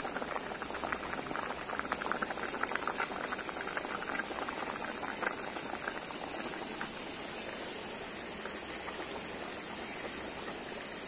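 Thick vegetable curry bubbling at the boil in an aluminium pot, with rapid irregular popping and crackling that thins out after about six seconds, over a steady hiss.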